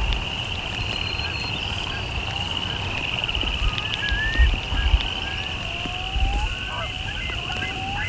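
Wetland ambience: a steady high-pitched trilling chorus, with many short rising bird calls over it and wind rumbling on the microphone, gusting louder about halfway through.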